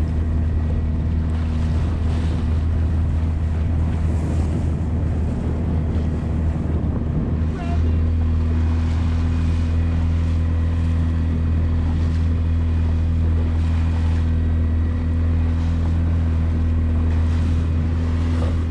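Small fishing boat's motor running steadily under way, with a brief dip in its note about a third of the way through, over wind and water rushing past the hull.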